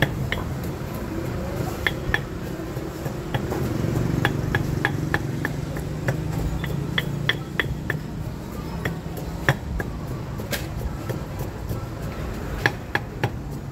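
A pestle pounding in a Thai stone mortar, grinding chilies and garlic into chili paste. The strikes come as irregular sharp knocks, sometimes two or three a second.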